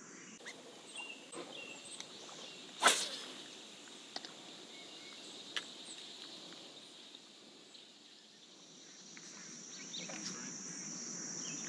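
Faint lakeside ambience of insects droning at a steady high pitch, growing a little louder over the last few seconds, with a few light clicks and one short sharp swish about three seconds in.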